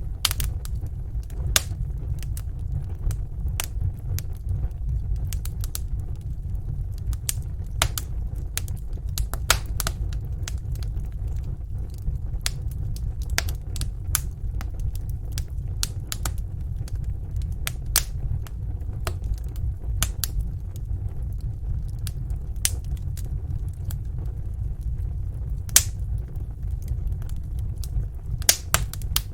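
Wood fire burning in a fireplace, crackling with irregular sharp pops and snaps over a steady low rumble of flames.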